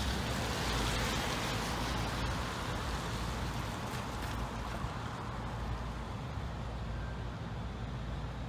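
Road traffic: a steady rumble with tyre hiss, easing off about halfway through.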